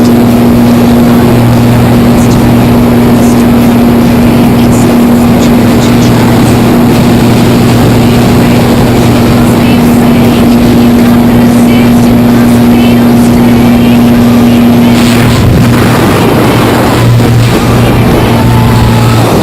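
Jump plane's engine and propeller droning loudly and steadily, with a constant low hum.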